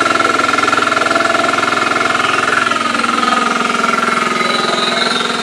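Petrol engine of a remote-controlled flail mower running steadily with a rapid pulsing beat, its pitch dipping slightly about halfway through as the flail rotor cuts. The flails are set very low, close to the ground.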